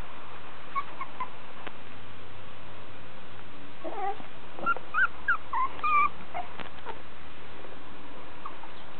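Five-week-old miniature schnauzer puppies whimpering and yipping: a quick run of short, high squeaks about four to six seconds in, over steady background noise.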